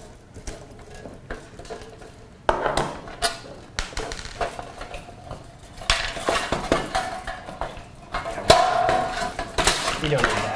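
Clattering, clinking and scraping of a Proctor Silex pop-up toaster being taken apart: irregular clicks and rattles as screws come out and the outer shell is pulled off its metal inner frame.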